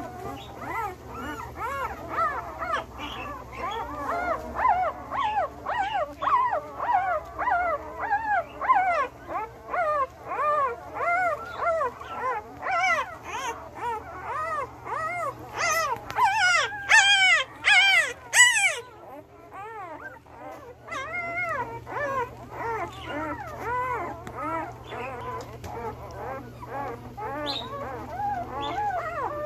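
A litter of week-old Belgian Malinois puppies whining and squealing, many short rising-and-falling cries overlapping without pause. The crying grows loudest and shrillest about two-thirds of the way through, drops to a brief lull, then picks up again.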